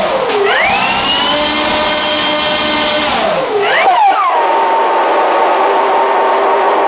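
Starmax 1600mm P-51 Mustang RC plane's electric motor and propeller run up on the ground, making a loud screeching whine: it rises in pitch, holds, falls away, rises again and holds steady before cutting off sharply at the end. This is the abnormal noise the motor made on takeoff when the plane lost power; its cause is unknown.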